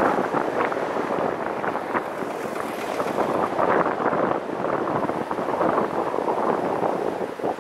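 Wind buffeting the microphone of a camera held above the roof of a moving car: a loud, fluttering rush.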